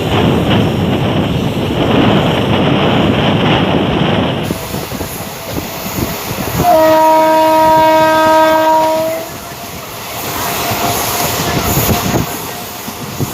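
Passenger train running, with heavy rushing noise for the first few seconds. Near the middle comes one long locomotive horn blast of about two and a half seconds, one steady note. Quieter rumble and clatter of the carriages on the rails follows.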